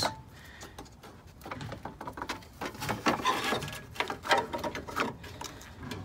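Plastic engine-bay trim cover and its push clips being worked loose by hand: irregular small clicks and scraping of plastic.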